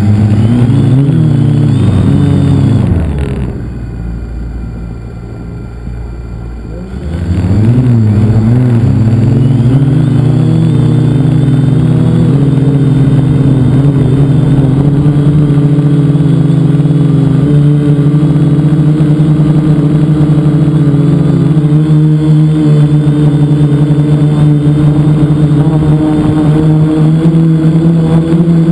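Multicopter's brushless motors and propellers heard from a camera mounted on the craft: a loud buzzing hum that swings up and down in pitch for the first few seconds, drops quieter for about four seconds, then comes back and holds steady, creeping slightly higher in pitch toward the end.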